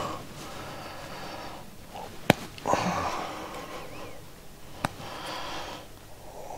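A man breathing through his nose close to the microphone, in long breaths about a second each. There are two sharp clicks, a loud one a little over two seconds in and a fainter one near five seconds.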